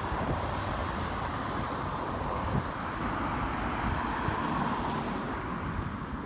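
Steady road traffic noise from cars and heavy trucks on a bridge road: a continuous tyre hiss over a low engine rumble, easing slightly near the end.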